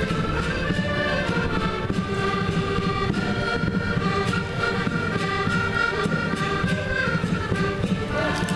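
A small group of concertinas playing a tune together, with held chords and melody notes over a steady rhythmic pulse.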